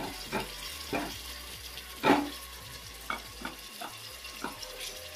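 Onions and ginger-garlic paste frying in oil in a pan, sizzling steadily, with a spoon scraping and knocking against the pan about seven times as the fresh coriander and mint are stirred in; the loudest stroke comes about two seconds in.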